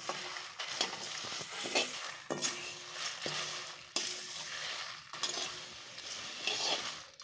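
Whole spices (coriander seeds, cumin, fennel, dried red chillies and bay leaves) being stirred with a spatula as they dry-roast in a kadai: a steady rattling scrape of seeds over the pan, with a few sharp clinks of the spatula against the metal.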